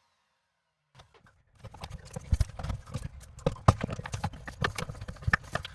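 Irregular hollow clicks and knocks of plastic parts being worked loose in a dishwasher's sump, around the food chopper assembly. They start after about a second and a half of silence and come thicker and louder from about two seconds in.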